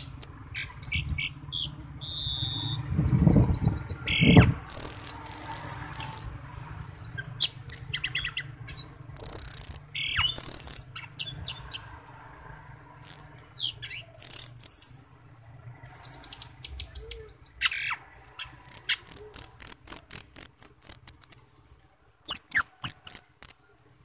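Caged cucak keling (Asian glossy starling) singing loudly: a varied string of high whistles, chirps, buzzy trills and sweeping notes, ending in fast runs of repeated sharp notes. There are a couple of dull low thumps about three to four seconds in.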